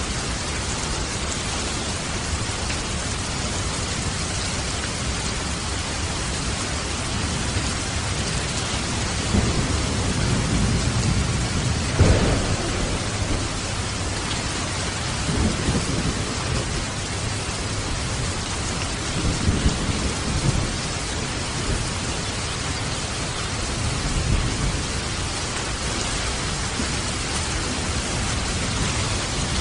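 Steady rain falling, an even hiss, with several low rolls of thunder from about nine seconds in, the loudest near twelve seconds.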